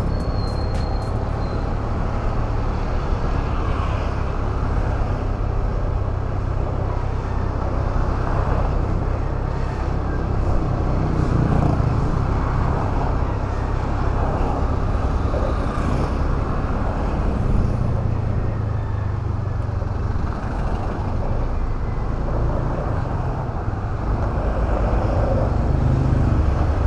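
Motorcycle running steadily at riding speed, a low engine hum under road noise, with city traffic around it.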